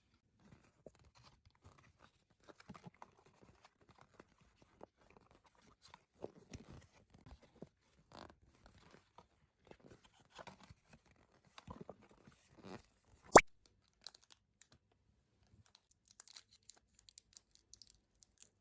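Close-miked handling of small plastic toy pieces and packaging: scattered crinkling, rustling and light clicks, with one sharp click about thirteen seconds in.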